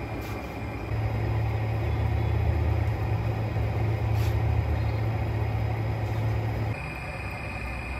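A steady low motor hum from the spinning pottery wheel. It gets louder about a second in and drops back near the end.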